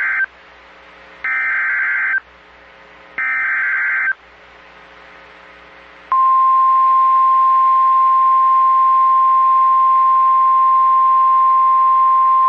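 Emergency Alert System SAME header on NOAA Weather Radio: the tail of one screeching digital data burst, then two more bursts about a second long with a second's pause between them. About six seconds in, the steady single-pitch 1050 Hz weather-radio warning alarm tone begins and holds. Together they announce a new warning.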